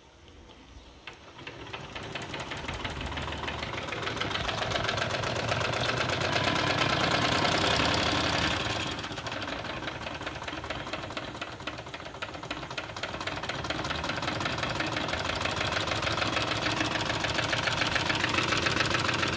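Wilesco D32 twin-cylinder model steam engine running under steam, a fast, even ticking chuff. It grows louder over the first few seconds, softens about nine seconds in, then builds again.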